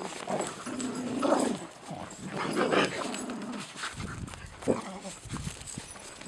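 Dogs vocalising while they play together: low grumbling sounds about one and three seconds in, then a run of short scuffling noises after about four seconds.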